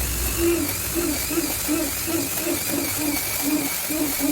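Scroll saw running, with a steady motor whine and a regular knock about three times a second.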